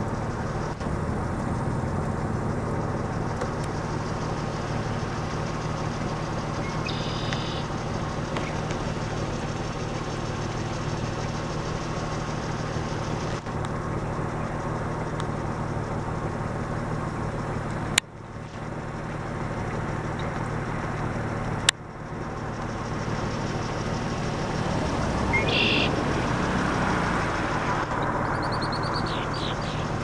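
Steady hum of road traffic from nearby streets, with a red-winged blackbird singing briefly twice, about a quarter of the way in and again near the end. Two sharp clicks come about two-thirds of the way through.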